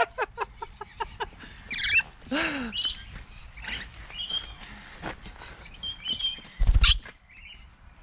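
Rainbow lorikeets giving short chirps and squawks at close range, some falling in pitch. A quick run of clicks comes in the first second, and a brief loud rumbling bump comes near the end.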